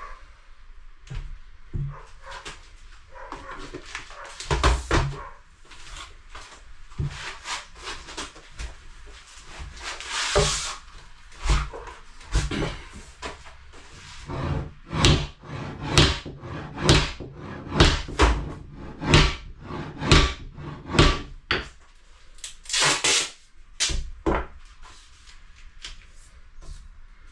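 A series of short knocks and scrapes from things being handled and set down on a stone benchtop, coming about one to two a second through the middle stretch, with a few longer hissing scrapes among them.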